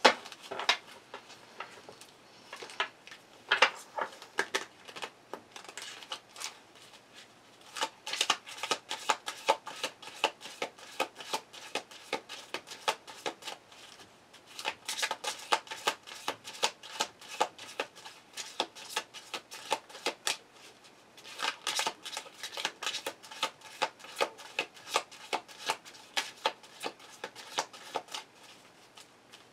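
Tarot cards being shuffled by hand: rapid runs of crisp card flicks in spells of several seconds, with short pauses between them.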